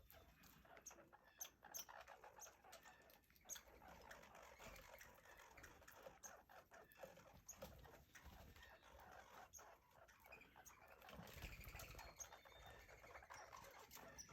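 Red squirrels scrabbling and gnawing while they feed: faint, irregular small ticks and scratches.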